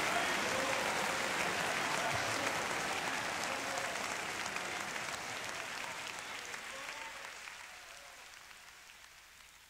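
Congregation applauding, with a few voices calling out, fading steadily away to near silence.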